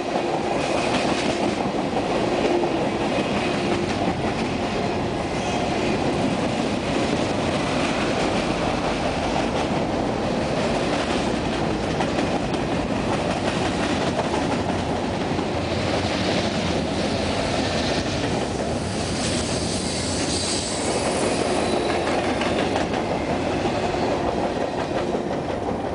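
A CN freight train's tank cars and boxcars rolling past at close range: a steady rumble with the clatter of wheels over the rails.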